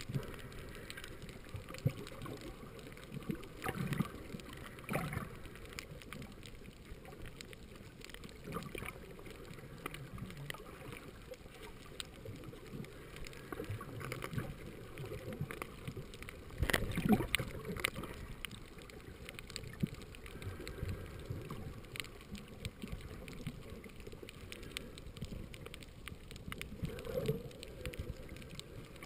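Muffled underwater noise picked up by a camera in the water: water moving and gurgling around it, with scattered faint clicks and a few louder knocks, the loudest about 17 seconds in.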